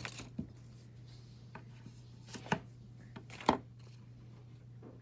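A few short knocks and clacks of objects being handled on a tabletop, the loudest two near the middle, over a steady low hum.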